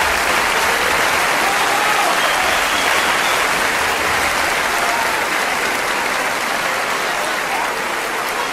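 Applause from a large crowd, a dense steady clapping that eases off slowly toward the end.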